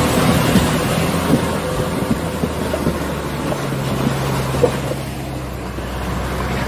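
Heavy loaded truck's diesel engine running steadily at low revs while the truck crawls through mud and water. The engine note shifts lower about three and a half seconds in.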